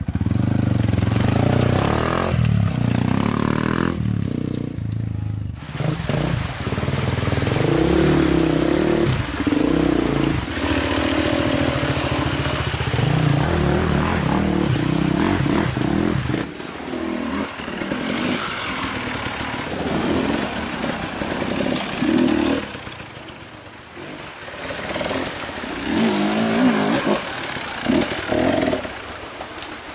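Off-road trail motorcycle engines running and revving, their pitch rising and falling with the throttle; the deepest engine note drops away about halfway through.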